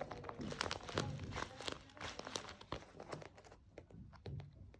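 Paper being handled: irregular crinkling and rustling with sharp little clicks, busiest in the first few seconds and thinning out toward the end.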